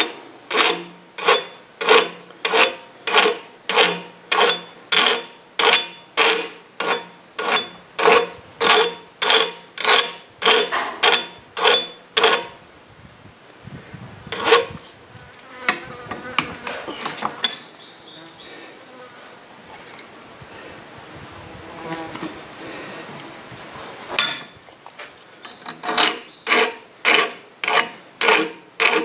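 Hand file rasping across the edge of a thin steel arrowhead blank cut from a spoon, in even strokes at about one and a half a second. About twelve seconds in the strokes give way to softer, uneven scraping. The regular strokes start again near the end.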